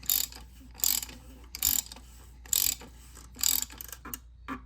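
Socket ratchet clicking in five short runs about a second apart as the oil filter housing cap is tightened down, with two fainter clicks near the end.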